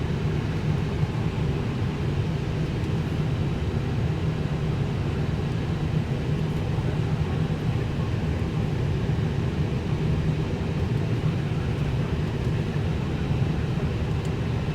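Steady low hum and hiss of a parked Airbus A319's cockpit air conditioning and ventilation, even and unchanging.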